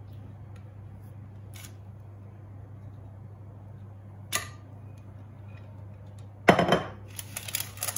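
Silicone spatula scraping brownie batter from a glass bowl into a parchment-lined glass baking dish: a sharp tap about four seconds in, then louder knocks and rustling in the last second and a half, over a steady low hum.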